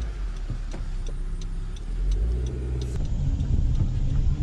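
Car engine and road rumble heard from inside the cabin as the car creeps along behind a runner, growing louder after about three seconds. A light, regular ticking runs through it, about three ticks a second.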